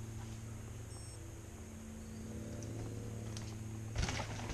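Low steady hum with faint outdoor quiet, then about four seconds in a sudden clatter of clicks and crunching as a mountain bike starts rolling over rocky trail ground.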